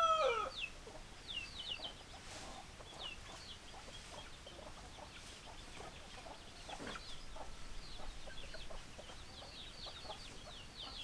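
A rooster's crow ending in the first half second, then quieter chickens calling: many short, high peeps with scattered clucks.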